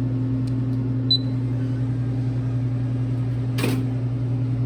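Steady low hum inside a car cabin, with a short rustle about three and a half seconds in.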